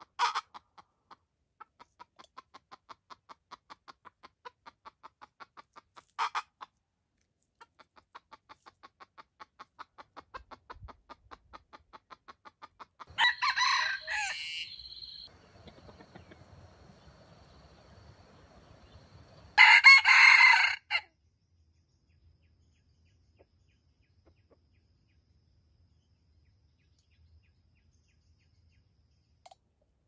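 Roosters crowing: two loud crows about 13 and 20 seconds in, each lasting a second or two. Before them runs a long series of soft, rapid, evenly spaced calls, broken by two short sharp calls near the start and about six seconds in.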